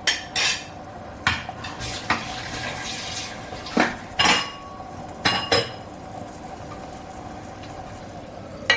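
Cooking pot and metal utensils clattering: a handful of separate metallic knocks and clinks, some ringing briefly, mostly in the first six seconds, over a faint steady hum.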